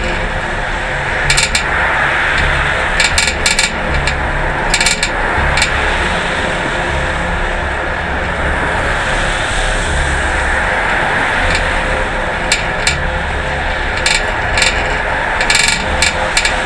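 Rusty mamachari shopping bicycle being ridden, its metal parts rattling and clanking in clusters of sharp clicks over a steady rush of wind and road noise. The rust is why it keeps making these metal sounds.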